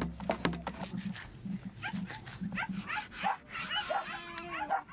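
Dog whining and yelping in a string of short, high, rising cries, with a longer wavering whine about four seconds in. There are scattered sharp clicks, like a knife on a wooden cutting board.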